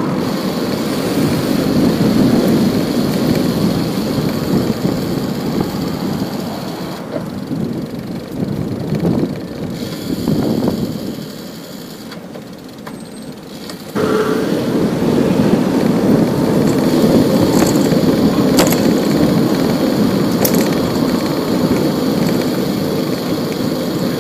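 City street traffic and road noise heard from a moving bicycle, a steady rushing. It fades about ten seconds in and comes back suddenly about fourteen seconds in.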